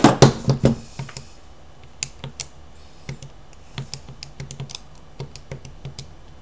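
Calculator keys tapped in a quick, irregular run of small clicks while a column of numbers is added up, after a few louder knocks in the first second.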